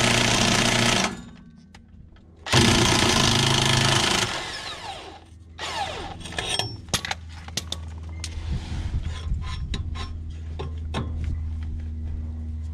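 Power tool hammering as it drives a tailpipe expander to flare the end of an exhaust pipe. It runs loud until about a second in, stops, then starts sharply again for under two seconds. Scattered metallic clicks and clanks follow as the tool and pipe are handled.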